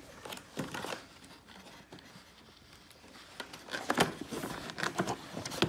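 Hands working in a cardboard toy box: cardboard scraping and rustling with sharp plastic clicks from twisting loose the plastic packaging locks that hold the toy, the clicks coming thicker in the second half.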